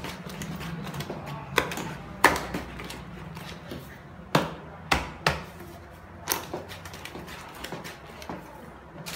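A long wooden stick stirring thick pukis batter in a large plastic bucket. It knocks against the bucket now and then: about six sharp, uneven clunks over a low churning background.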